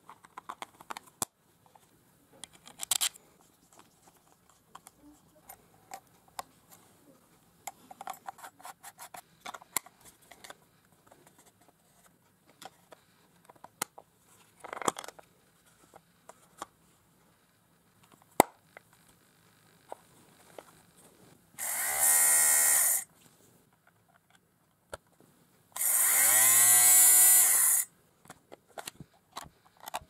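The Philips GC026 fabric shaver's small electric motor and blades, switched on twice near the end for a second or two each time, whirring up to speed with a rising pitch. Scattered clicks and taps of the plastic housing being handled come before.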